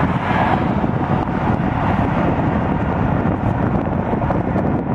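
Wind buffeting the microphone outdoors: a steady rushing noise with a rough, uneven low rumble.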